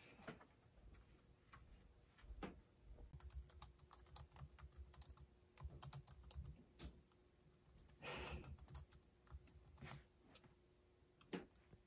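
Faint typing on a laptop keyboard: soft, irregular key clicks, with a brief louder rush of noise about eight seconds in.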